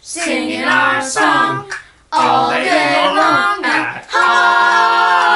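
Voices of children and a woman singing a cappella in short phrases, with a brief pause about two seconds in, then a long held note near the end.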